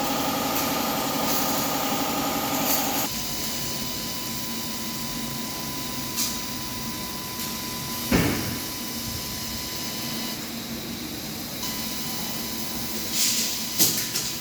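100 W CNC laser cutter with a rotary attachment at work on PVC pipe. A wavering motor hum stops about three seconds in, leaving a faint steady high whine, with a few sharp knocks, the loudest one about eight seconds in.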